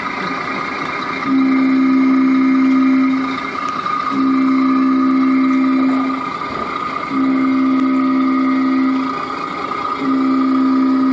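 A horn sounding in long, steady blasts of about two seconds each, a second apart, four times, over a steady high-pitched whine.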